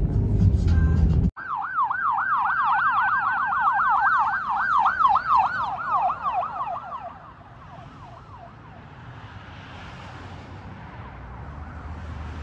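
A low rumble cuts off suddenly about a second in. Then an ambulance siren on its fast yelp, sweeping up and down about four times a second, loud at first and fading away over a few seconds as the ambulance drives off, leaving faint traffic noise.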